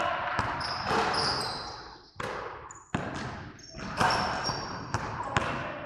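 Basketball bouncing on a hardwood gym floor in irregular thuds, with short high squeaks of sneakers on the wood as players move.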